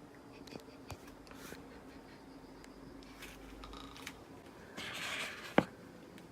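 A sleeping person in a quiet room between snores: small clicks and rustles over a faint steady hum, a short breathy exhale about five seconds in, then one sharp click right after it.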